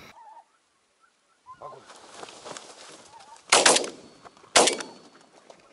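Two shotgun shots about a second apart, fired at geese flying overhead, with faint goose honking before them.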